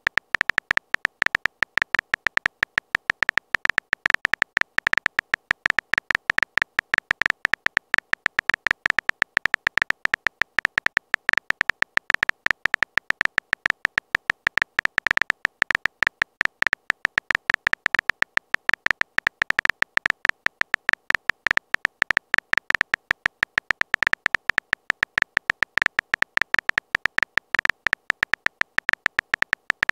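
Phone keyboard typing sound effect: a rapid, even stream of short high-pitched clicks, several a second, one per character as a text message is typed out.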